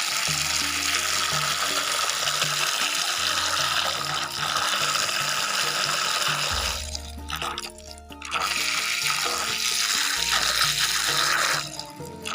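Water churning and splashing steadily, briefly dropping away twice, over background music with a stepping bass line. This is most likely the small battery-driven twin propellers of a homemade toy boat running in a tub of water.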